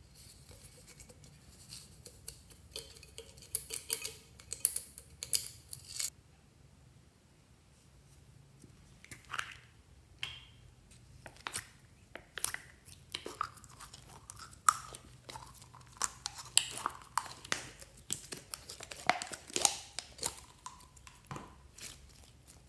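Hands squeezing blue glitter slime out of a plastic cup and kneading it: scattered sticky clicks, pops and crackles, with a dense run of crackling in the first six seconds.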